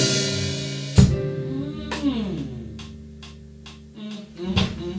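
A song with drum kit ending: a last loud hit about a second in rings out and fades away, with a falling slide and a few light ticks and taps after it.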